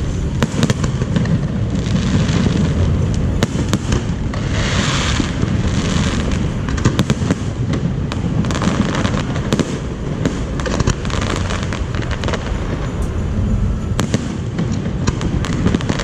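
Fireworks display going off continuously: a steady rumble of bursts, with many sharp cracks and patches of crackling.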